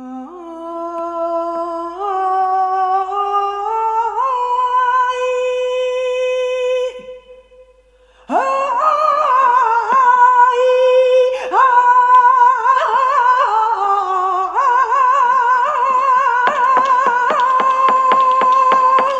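Woman singing flamenco cante unaccompanied: a long wavering, ornamented line that climbs in steps, stops for over a second about seven seconds in, then comes back louder. In the last few seconds sharp taps come in under the voice, several a second.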